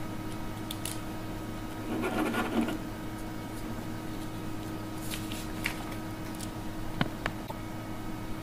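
Ballpoint tip of a pen scribbling briefly on a small slip of paper lying on a wooden table. A few light clicks and taps follow as the pen is handled.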